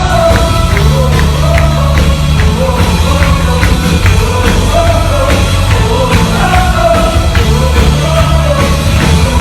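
Praise-and-worship band music with a singing voice over a strong bass line and a steady beat.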